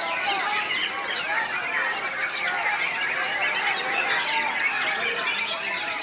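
Many caged white-rumped shamas singing at once, a dense chorus of overlapping whistles, chirps and quick rising and falling notes.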